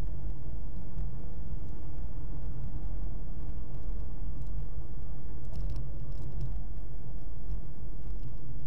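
Steady low rumble of a car's engine and tyres heard from inside the cabin as the car gathers speed.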